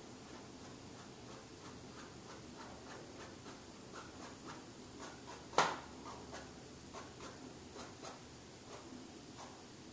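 Drawing tool scratching short strokes onto a canvas, a soft scratch with each mark about three times a second, with one sharp tap about five and a half seconds in.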